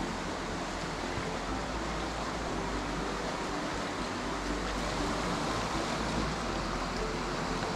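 Steady rush of a clear, stony mountain stream running over a shallow riffle.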